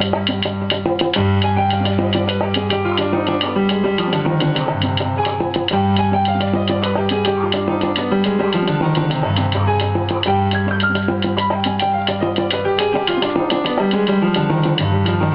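Salsa music played live by a band: dense, steady hand percussion over a deep bass line that shifts notes every few seconds, with pitched instruments above.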